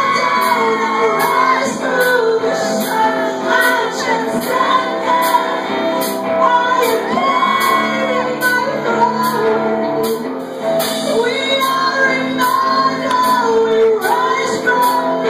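Live metal band playing loudly in a large room: a woman singing over the band, with drum hits about twice a second.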